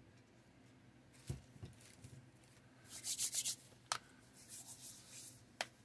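Hands rubbing and shuffling over a paper instruction sheet and thin wooden model parts, with a few light taps and clicks; the loudest scratchy rubbing comes about three seconds in.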